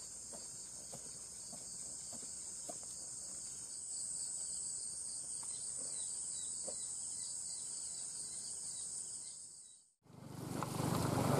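Steady, high-pitched insect chorus with a faint pulsing, and a few soft footsteps on grass in the first seconds. It fades out about ten seconds in and cuts to a louder, rough steady noise.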